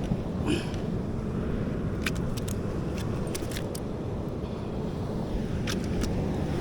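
Steady low rumble of sea surf and wind against the microphone, with a scattered run of light, sharp clicks from about two seconds in and two more near the end.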